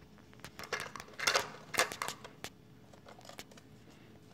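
Plastic clicks and clatter as the hopper and lid of an NKOK RC toy garbage truck are worked by hand: a quick, uneven run of sharp clicks over the first two and a half seconds, then quiet.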